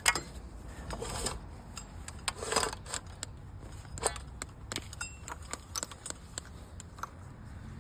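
Scattered small clicks and brief rustles of a cut power cord being pulled through an appliance's housing.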